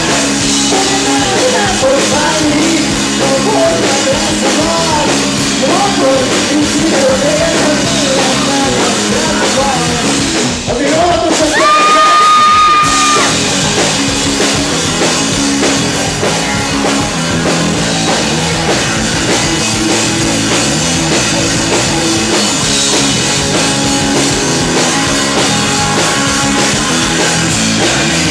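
Live rock band playing loud: electric guitars, drum kit and a lead vocal. The singing breaks off about ten seconds in, a single high note is held for a second or so, and then the band plays on.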